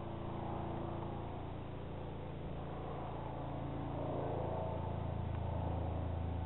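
Helicopter flying overhead: a steady drone of rotor and engine, growing a little louder about four seconds in.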